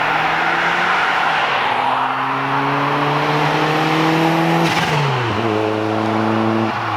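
Straight-piped turbocharged Mazdaspeed Protege5 engine accelerating, its pitch climbing steadily, then dropping sharply a little before five seconds in as it shifts up, with a brief sharp noise at the drop. It then runs steadily, with another small change in pitch near the end.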